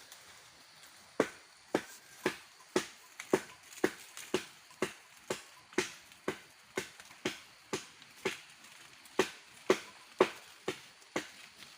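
Repeated chopping strokes, about two a second, each a sharp knock with a short ring, beginning about a second in and keeping an even rhythm.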